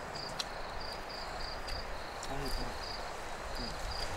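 Crickets chirping at night: a high chirp repeating evenly about three times a second over a faint background hiss.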